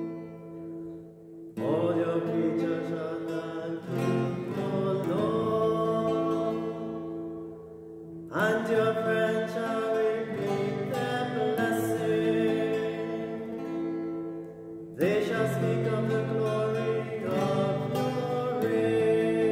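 A man singing a psalm chant to his own classical guitar. Chords are strummed and left ringing, with strong new chords at several points.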